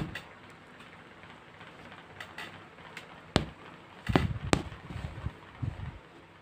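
Handling knocks and thumps while yarn is pulled and tied into calico on a stretching frame: a sharp knock at the start, another about three and a half seconds in, then a cluster of duller thumps over the next two seconds.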